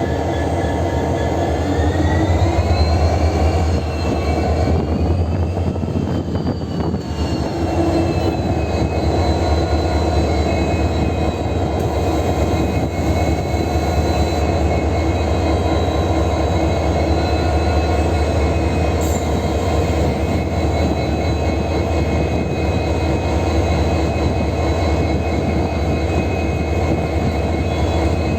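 Indian Railways WDG-4D diesel locomotive (a GE Evolution Series design) humming steadily, with a whine over the deep hum that rises in pitch about two seconds in, wavers a few seconds later, then holds steady.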